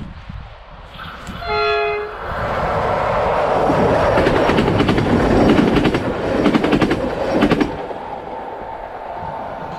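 An electric locomotive-hauled train sounds a short horn blast about a second and a half in, then passes close by at speed with its wheels clattering over the rail joints. The passing noise cuts off sharply near the end, leaving a fainter steady hum as the train moves away.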